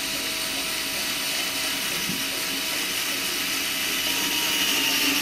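Xiaomi Mijia cordless electric screwdriver's motor running steadily while driving a long screw into wood, its whine dropping a little in pitch near the end as it comes under load.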